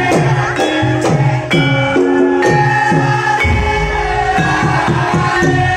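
Live Javanese gamelan playing. Kendang hand-drum strokes drop in pitch, about two a second, under ringing bronze metallophone and gong notes.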